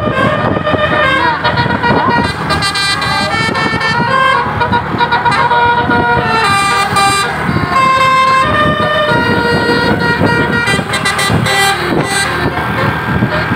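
Tour bus 'telolet' horn, a set of multi-tone air horns, playing a tune of pitched notes that step up and down and are held briefly each.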